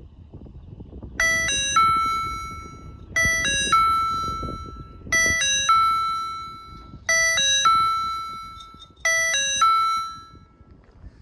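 Electronic warning chime of a railway level crossing sounding a three-note doorbell-like ding-dong pattern, with the last note ringing out and dying away. It repeats five times, about every two seconds, signalling an approaching train.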